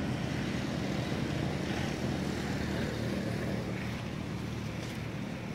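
A steady, low engine-like hum from a running motor.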